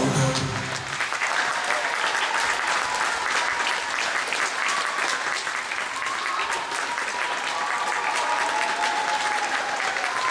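Audience applauding, a dense patter of hand claps, with a few voices calling out over it; backing music cuts off about a second in.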